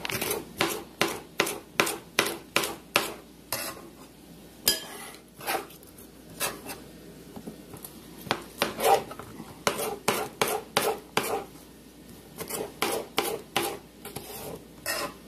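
Kitchen knife dicing a green bell pepper, the blade tapping sharply on a hard plate used as a cutting surface. The quick chops come in runs of about three a second, broken by short pauses.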